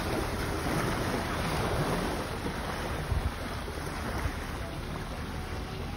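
Wind buffeting the microphone over small waves lapping at the water's edge: a steady rushing hiss with deep rumble, and a brief bump about three seconds in.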